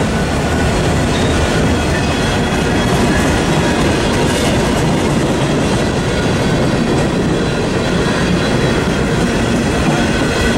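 Freight train's open-top cars rolling past: a steady, loud rumble of steel wheels on rail, with a faint high ringing above it.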